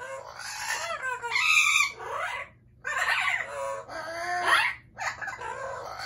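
Amazon parrot calling: about five loud, pitched squawks in quick succession, several sliding upward in pitch.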